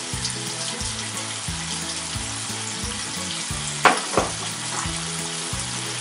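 Spice paste and liquid sizzling and bubbling in a frying pan, a steady hiss, with two sharp knocks about four seconds in. Soft background music runs underneath.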